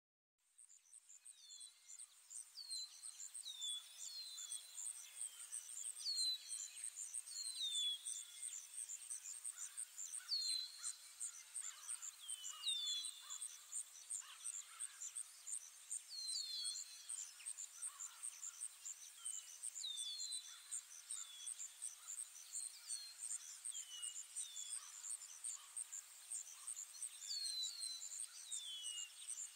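Woodland ambience that fades in: an insect chirping high and fast in an even pulse, with birds giving short falling calls every second or two.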